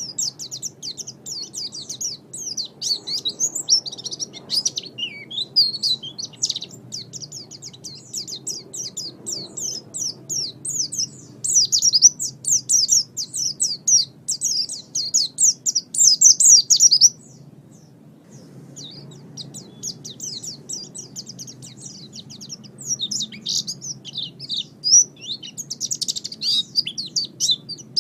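A songbird singing a fast, unbroken string of high chirps and trills, pausing for about a second and a half some two-thirds of the way through before resuming. This kind of recorded birdsong is played to cage birds to lure them and to teach them song. A faint low hum runs underneath.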